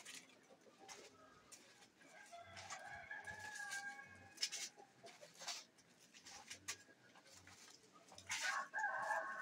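A rooster crowing twice, each crow about two seconds long, the second beginning near the end. Between the crows come a few faint sharp clicks.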